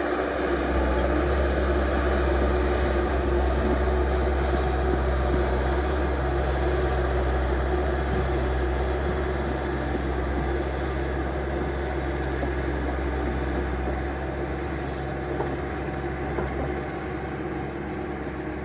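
A vehicle's engine running steadily with a strong low rumble and a constant hum, easing off a little in the last few seconds.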